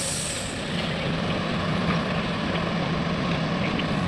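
Heavy diesel engine of construction machinery running steadily, with a low hum that firms up after about a second. A high hiss dies away about half a second in.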